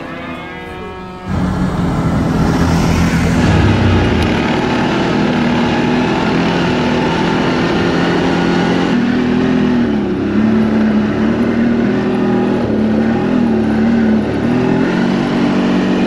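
ATV engine running steadily under way, its pitch rising and falling with the throttle.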